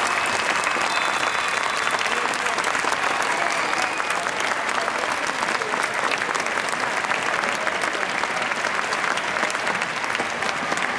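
Crowd of spectators applauding steadily, many hands clapping at once.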